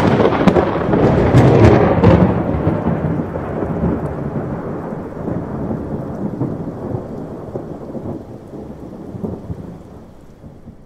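Thunder: a loud crackling clap at the start, then a long low rumble that fades away over about eight seconds and dies out near the end.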